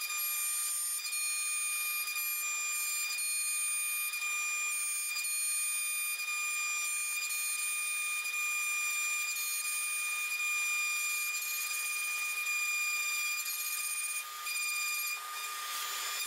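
CNC router spindle whining at a steady high pitch as its end mill cuts a pocket in a wooden blank. The level dips briefly about 14 seconds in.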